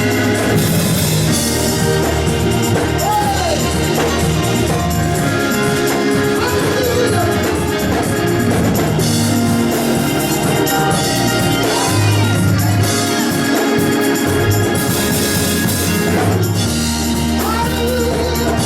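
Church music played live: an organ holding chords over a bass line, with cymbal washes now and then and voices singing over it.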